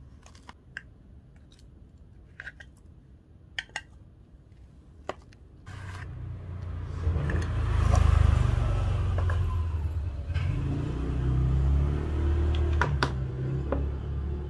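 A car engine comes on suddenly about six seconds in and runs with a low rumble, loudest about two seconds later, as the car moves off. Before it, a few faint sharp clicks.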